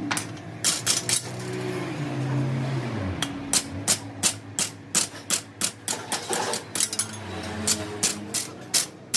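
Hammer blows on metal, sharp and irregular, a few strikes a second, over a steady machine hum that drops in pitch about three seconds in.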